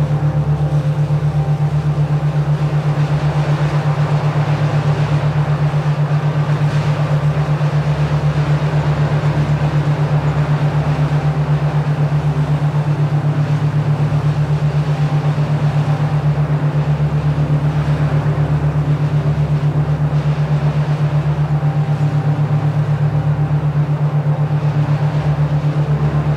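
A steady low hum-like tone pulsing evenly and rapidly, a binaural-beat track, laid over a soft steady hiss.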